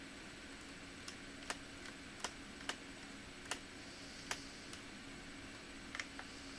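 Light, sharp clicks and taps, about eight scattered irregularly over a few seconds, over a faint steady hum.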